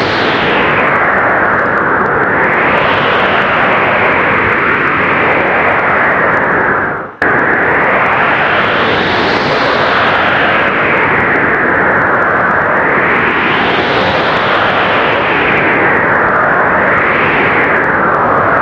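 Blizzard wind roaring steadily, swelling and easing in gusts every few seconds. About seven seconds in it dips briefly and then cuts straight back in at full strength.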